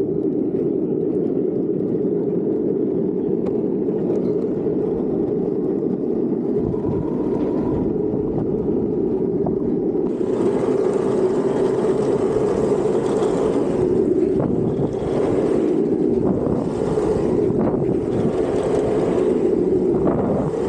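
Street luge's urethane wheels rolling fast on asphalt, a steady low roar mixed with wind rushing over the microphone; about halfway through a higher hiss joins in.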